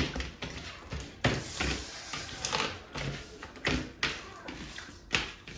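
Eating by hand from a steel plate: rice and curry being squeezed and scooped, with about half a dozen irregular taps and knocks of fingers against the metal plate.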